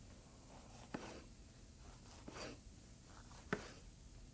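Chef's knife slicing a red bell pepper on a wooden cutting board: three quiet cuts, each ending in a tap of the blade on the board, a second or so apart.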